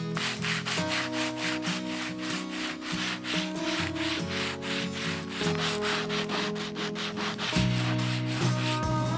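Old wooden board being hand-sanded in quick back-and-forth scratchy strokes, about three a second, stopping near the end. Background music plays underneath.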